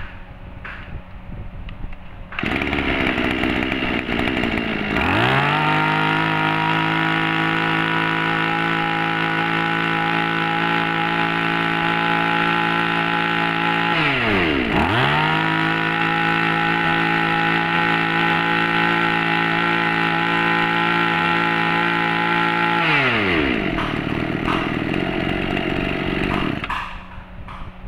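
Small 26cc BC2600 brushcutter engine catching about two seconds in, then revving up to a steady high-speed run. It drops briefly and revs back up about halfway through, then falls to a lower idle near the end and shuts off.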